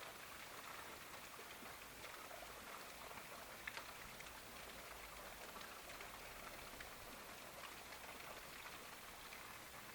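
Light rain: a faint, steady hiss scattered with soft ticks, one a little louder just before the middle.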